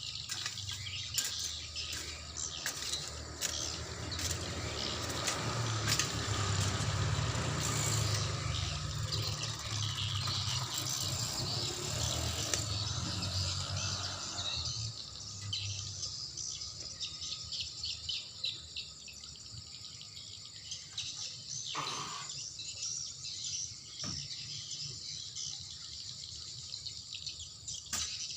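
Crickets and other night insects chirring steadily, with a low rumbling noise through the first half that drops away about halfway through.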